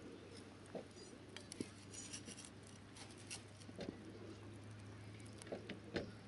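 Kindling burning in a small campfire, giving scattered sharp crackles and snaps over a low steady hum, with faint bird chirps.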